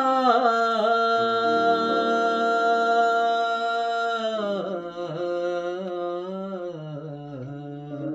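A man singing an Urdu ghazal over sustained chords on a keyboard. A few quick ornamented turns lead into a long held note of about three seconds, then a wavering phrase falls in pitch toward the end.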